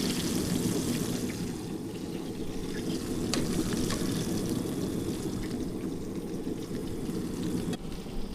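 Fish fillets frying in hot oil: a bright sizzle that dies down after the first second or two, leaving a few sharp pops over a steady low rushing noise.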